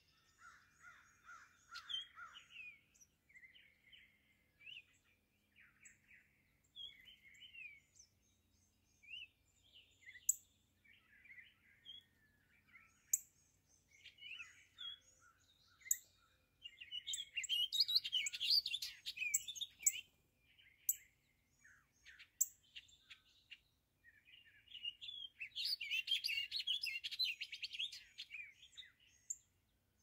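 Several songbirds singing together in a spring dawn chorus: overlapping short phrases throughout, with two louder, longer runs of rapid notes, one a little past halfway and one near the end, and scattered short, sharp high notes.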